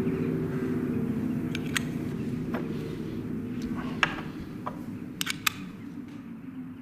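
Small metal instruments clicking and clinking against a tabletop as they are picked up and set down: about seven sharp separate clicks. Under them runs a low steady drone that slowly fades.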